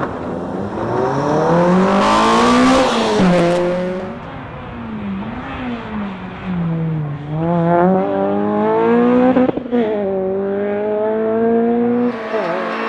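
Honda Integra Type R's four-cylinder engine pulling hard on a tarmac rally stage. Its note climbs steeply, drops sharply at an upshift about three seconds in, dips and recovers through a few seconds of lift and throttle, then climbs again to a second upshift near the ten-second mark.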